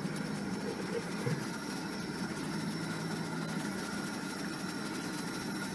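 Car running at low speed, heard from inside the cabin: steady engine and road noise on a rough dirt road, with a small knock about a second in.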